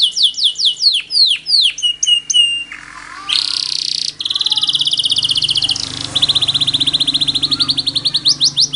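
Songbird singing: fast trills of repeated high notes, a few downward-sweeping whistles about a second in, then a long, rapid trill through the second half.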